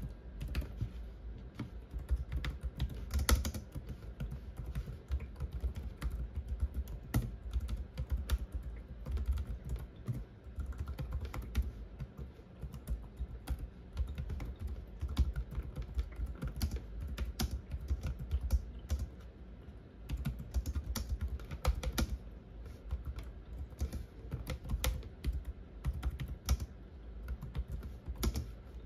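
Typing on a Logitech K380 compact Bluetooth keyboard, its round low-profile scissor keys giving a fast, irregular stream of soft clicks and taps, with a few louder keystrokes standing out.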